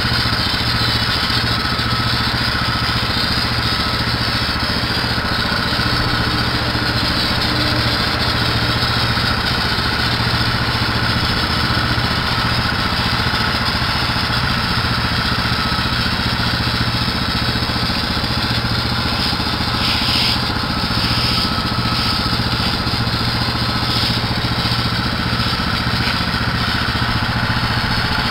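Gas-engine pressure washer running steadily, with the hiss of its spray wand on paver stones. The hiss surges a few times about twenty seconds in.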